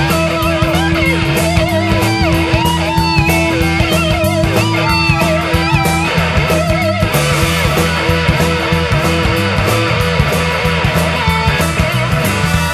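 Instrumental blues-rock band recording: electric guitars over bass guitar and drums. A long held note sounds through the first half and stops about six seconds in, with bending lead lines above it.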